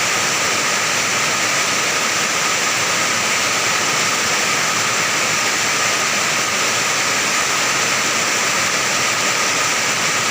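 Heavy rain pouring steadily onto an iron roof: a dense, even drumming hiss that does not change.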